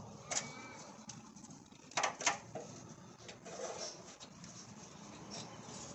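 Light clicks, scuffs and rattles of a fuel pump and sender assembly being worked by hand into the fuel tank's opening, with a few sharper knocks about two seconds in.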